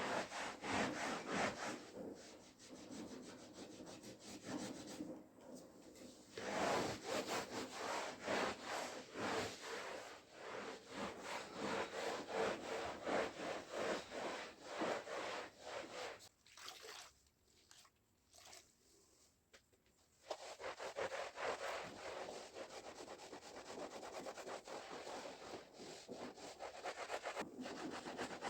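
Rapid back-and-forth scrubbing strokes during cleaning, with a pause of a few seconds a little past the middle.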